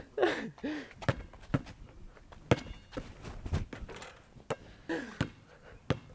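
Basketball bouncing on a concrete driveway while being dribbled: about seven sharp thuds at uneven intervals.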